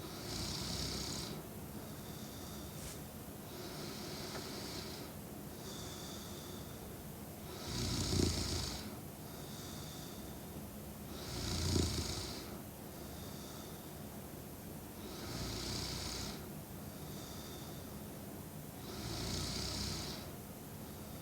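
A sleeping woman snoring in slow, even breaths, about one every three and a half to four seconds. Two of the snores, about eight and twelve seconds in, are louder, with a low rattle.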